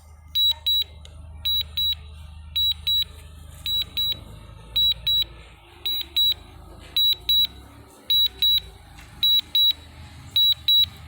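Mavic Mini drone controller sounding its warning beeps, a sharp high double beep repeating about once a second, while the drone flies back on return-to-home under a strong-wind alert.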